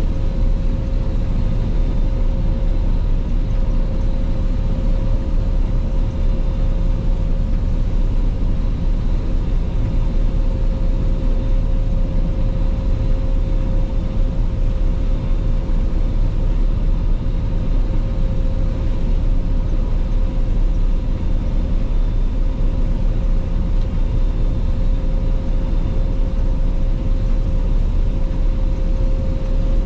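Claas Lexion 480 combine harvester running steadily while harvesting rapeseed: a continuous low engine drone with a steady whine above it.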